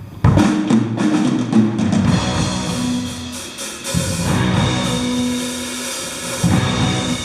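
Live rock band playing, the drum kit to the fore with bass drum and snare hits under held bass and guitar notes; the band comes in with a loud hit about a quarter second in.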